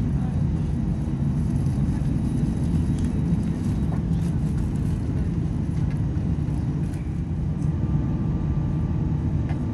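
Steady low rumble of an Airbus A319's CFM56 engines and airflow heard inside the passenger cabin, with no rise or fall in pitch and a few faint ticks.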